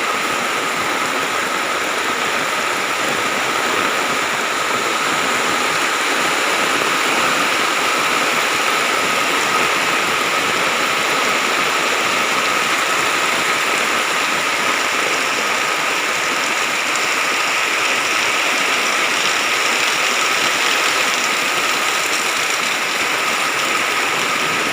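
Heavy rain pouring down hard, a loud, even rush of water with a thin steady tone held under it.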